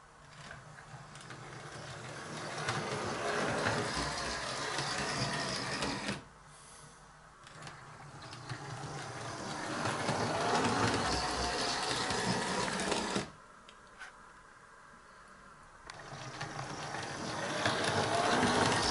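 Model locomotive on a shuttle layout running along the track: a small electric motor whirring with the wheels clattering on the rails. It makes three runs, each building up and then stopping suddenly, with short pauses between them.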